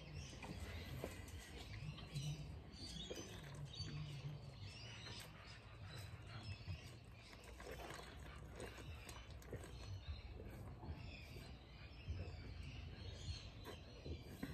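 A bottle of beer being chugged as a 'beer tornado': the glass bottle is held upside down at the mouth and the beer drains in a swirl, with quiet gulping. Birds chirp faintly in the background.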